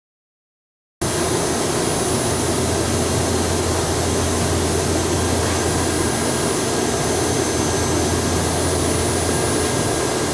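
Steady whirring and hum of laboratory machinery, with a few faint high-pitched whines over it, starting abruptly about a second in and holding at an even level.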